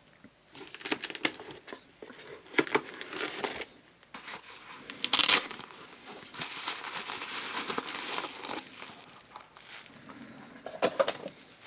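Packaging being handled and unwrapped while unboxing, with crinkling plastic wrap in irregular bursts and a few sharper crackles.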